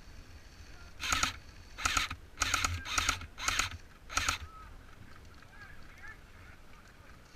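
Geese honking: six short, loud honks in quick succession over about three seconds, followed by faint chirping.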